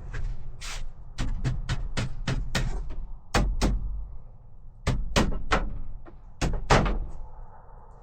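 A series of sharp knocks on wood: a quick run of about a dozen strikes in the first three seconds, then spaced pairs and a triple, the loudest near the end.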